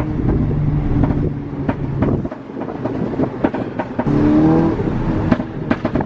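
Mk6 Volkswagen GTI's turbocharged 2.0-litre four-cylinder, Stage 2 tuned with a downpipe and a pops-and-bangs map, heard from inside the cabin. It pulls under throttle, lifts off about two seconds in with a scatter of sharp exhaust crackles and pops, then accelerates again about four seconds in, with more crackles near the end.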